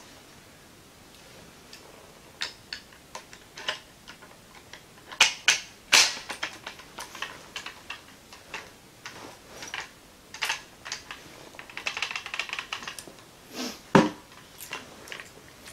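Metal clicks and rattles of a bayonet being handled and fixed onto a Zastava M70 AB2 assault rifle: a string of sharp, irregular clicks, the loudest about six seconds in, and a heavier knock near the end as the rifle is set down.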